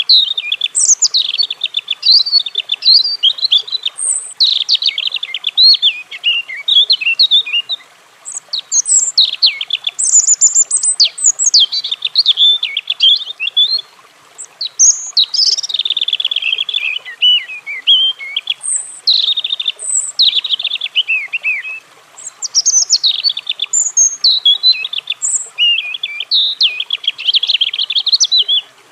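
European robin singing: high, varied warbling phrases of quick trills and slurred notes, broken by brief pauses every several seconds.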